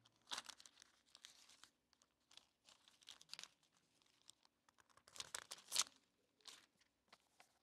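Bible pages being turned and rustled by hand, in a few faint, brief bursts, the loudest about five to six seconds in.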